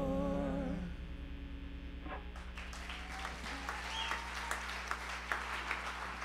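A woman's last held sung note, with vibrato, fades out in the first second. About two seconds in, the audience starts clapping, and the applause grows steadily.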